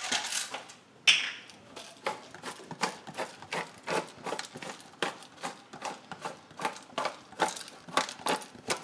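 Pepper mill being twisted, grinding black pepper with a run of short crunching clicks, about three a second.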